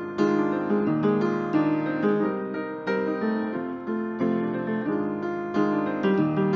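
Background piano music: a steady flow of gentle struck notes and chords.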